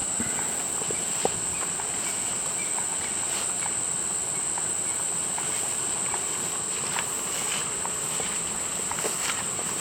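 Steady high-pitched insect chorus, one unbroken shrill note, over an even background hiss with faint scattered clicks.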